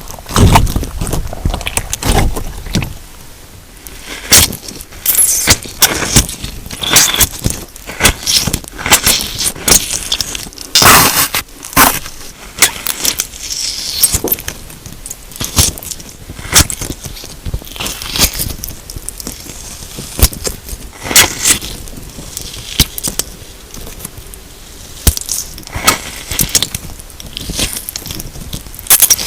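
Clear slime mixed with chunks of melamine sponge, squeezed and kneaded by hand: irregular crunchy crackles and squishes, with sharper crackles every second or so.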